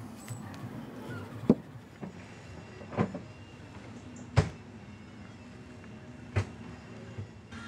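Four sharp clunks, a second or two apart, as things are handled and set down among the wooden cupboards inside a camper van. The first and third clunks are the loudest.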